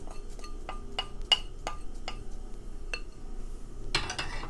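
A spoon clinking and scraping against a bowl about ten times, roughly three taps a second, as cumin seeds are knocked off into the pan. Near the end comes a brief louder scraping rustle.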